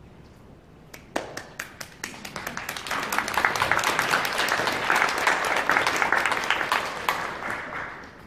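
Audience applause: a few scattered claps about a second in, swelling into full clapping that dies away near the end.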